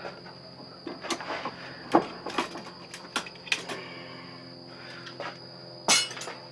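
Steel parts of a 330 conibear trap clinking and clanking as its springs are worked loose and handled: a string of short, sharp metal knocks, the loudest just before the end.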